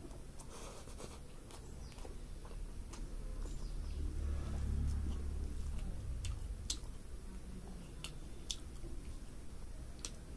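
Close-miked chewing and lip-smacking as rice and curry are eaten by hand, with scattered sharp mouth clicks and a low rumble for a couple of seconds in the middle.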